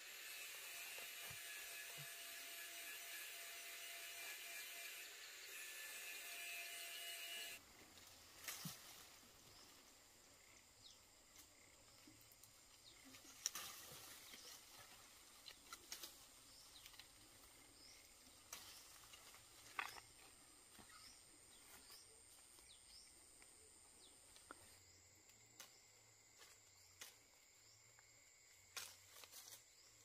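Faint outdoor ambience. A steady high hiss cuts off abruptly about seven seconds in, leaving quieter background with scattered light clicks and a thin steady high tone.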